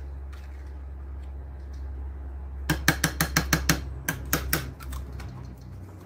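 Silicone spatula tapping and scraping against a small plastic applesauce cup: a quick run of sharp clicks, about six a second, through the middle, over a steady low hum.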